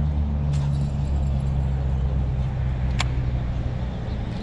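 Steady low hum of an engine running at an even speed. Two sharp clicks come through, about half a second in and about three seconds in.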